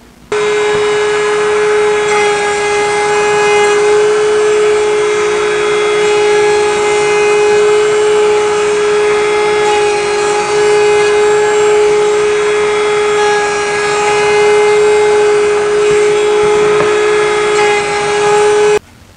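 Router spinning at high speed in a Bosch benchtop router table, a steady high whine over cutting noise as a wooden cutting board is fed along the fence past the bit. It starts abruptly just after the beginning and cuts off abruptly near the end.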